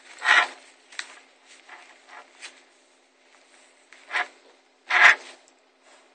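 Handling noise: a string of short rubbing, scraping sounds. The loudest come right at the start and about five seconds in, with smaller ones between.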